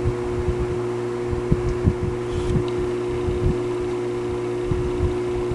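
Honeywell HW-690 window fan's capacitor-run motor running with the blade spinning: a steady electrical hum under a rush of moving air, with irregular low thumps.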